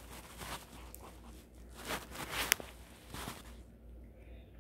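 Clear plastic clamshell cupcake container being handled and opened: a few plastic rustles and crinkles, with one sharp click about two and a half seconds in.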